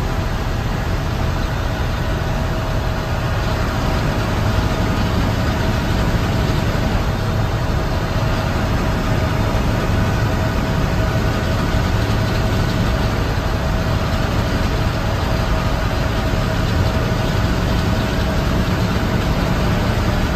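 Bus engine and road noise heard from inside the cabin while driving: a steady low drone with a thin steady whine above it.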